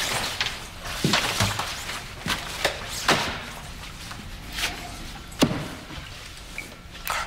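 A series of irregular sharp knocks and clicks, like objects being handled and set down in a small room, over a faint rustle. The loudest knock comes about five and a half seconds in.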